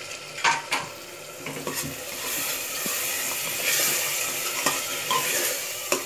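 Garlic chutney and chopped tomatoes sizzling in hot oil in an aluminium pressure cooker, stirred with a metal spoon that scrapes and clicks against the pot. The sizzle grows louder from about two seconds in.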